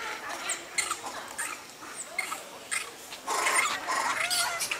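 Long-tailed macaques giving short high squeaks and calls, with a louder, noisier stretch of calling and scuffling starting about three seconds in.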